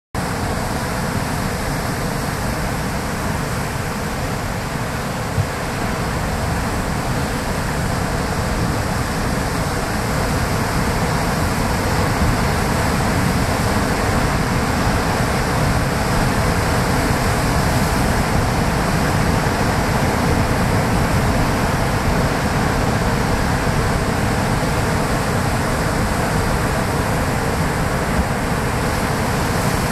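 Steady rushing of surf on a sandy beach, with wind rumbling on the microphone.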